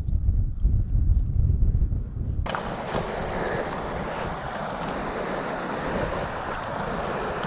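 Wind buffeting the microphone, with faint footsteps. About two and a half seconds in it switches abruptly to a steady rushing hiss.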